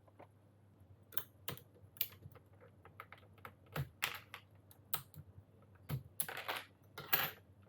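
Plastic keycaps being pressed onto the stems of Gateron Yellow switches on a mechanical keyboard: an irregular run of sharp clicks and clacks, with a few longer clattering stretches in the second half.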